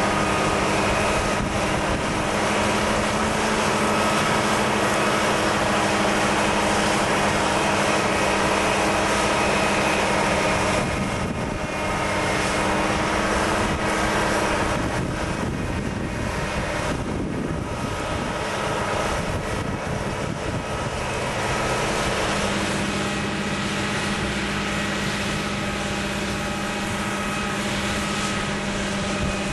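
Heavy machine's engine running steadily, a continuous hum over a broad noise. The lowest note drops out for a while in the middle and returns near the end.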